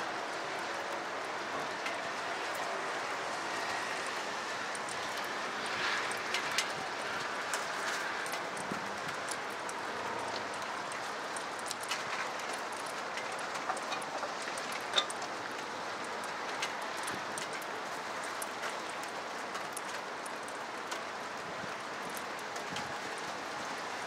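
Steady rain falling, a continuous even hiss, with scattered sharp ticks of drops striking nearby surfaces and one louder drop about two-thirds of the way through.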